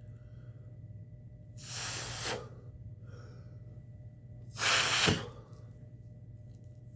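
A person blowing out two strong breaths, about three seconds apart, the second louder: exhaling smoke from a freshly rolled joint, with fainter breaths drawn in between.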